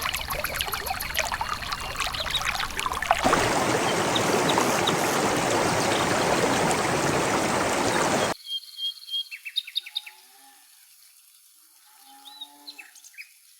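Running water splashing and pouring, turning into a louder, fuller rush about three seconds in, then cutting off abruptly after about eight seconds. Birds then chirp with short calls over a quiet background.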